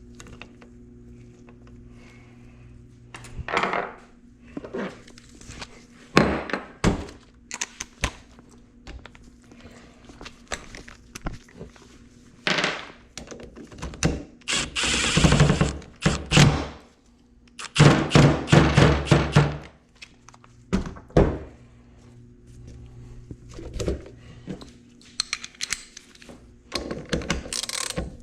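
Metal parts of a dirt-bike engine's clutch side and shift mechanism being handled and fitted: a string of separate thunks and clicks, with two longer noisy stretches of about two seconds each near the middle.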